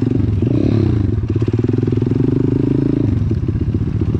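Single-cylinder four-stroke pit bike engine running under throttle while being ridden, close to the microphone. The engine note dips and climbs again about half a second in, then eases off a little about three seconds in.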